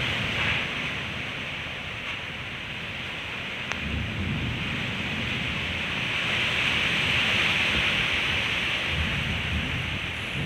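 Heavy wind blowing in gusts, a steady rushing hiss that swells louder about six seconds in, with low rumbling buffets of wind on the microphone.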